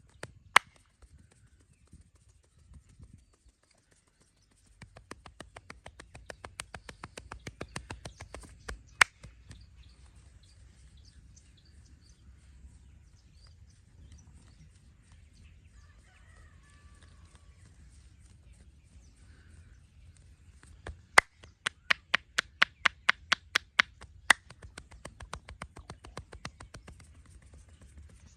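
Massage percussion: two quick, even runs of sharp slapping taps, several a second, the second run louder, with a few single sharp snaps between them.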